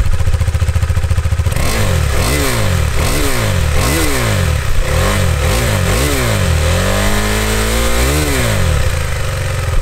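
KTM 390 Adventure's single-cylinder four-stroke engine heard at the exhaust silencer. It idles, then is blipped about seven times in quick succession, each rev rising and falling. Near the end it is given one longer rev, held about a second, and drops back to idle.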